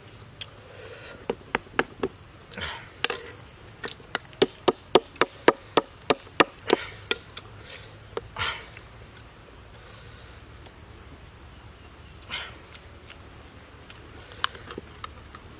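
A large knife knocking on an oyster shell to crack it open: a run of sharp knocks starting about a second in, quickening to about three a second, and stopping after about seven seconds. A steady insect buzz underneath.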